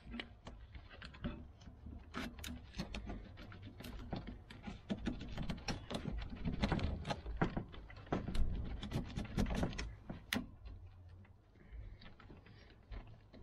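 Gloved hands handling a car's wiring harness and plastic electrical connector: a quick, uneven run of clicks, rattles and rustles, busiest in the middle.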